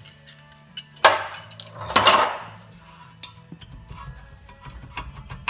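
Metal hand tools and brake parts clanking against each other, in two loud clattering bursts about a second apart, then lighter clinks.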